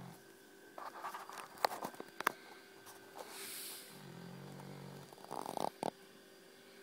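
Sleeping dog snoring: a low buzzing snore about four seconds in, a soft breathy hiss just before it, and sharp clicks and crackles from the mouth and nose in between.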